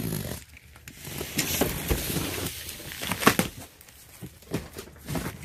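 Box cutter slicing through packing tape on a cardboard box, then the cardboard flaps being pulled open: scattered rustling, scraping and short clicks of cardboard and tape.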